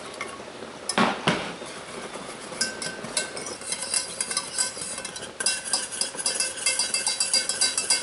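A wire whisk scraping and clinking against the inside of a stainless steel saucepan, stirring a milk-and-cornstarch pudding mixture, the strokes becoming a steady rapid rhythm in the second half. About a second in, two sharp knocks as the pot is set down on the glass cooktop.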